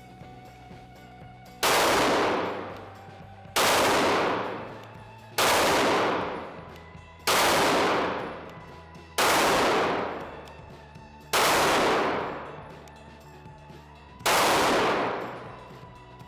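Sig Sauer P320 pistol firing single shots at a slow, steady pace: seven shots about two seconds apart, each with a tail that fades over about a second.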